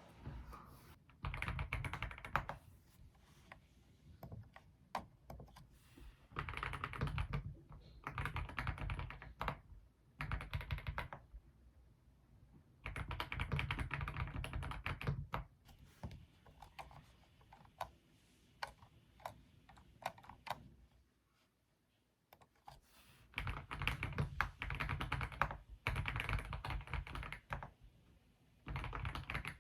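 Typing on a computer keyboard in bursts of rapid key clicks lasting a second or two, with short pauses between them.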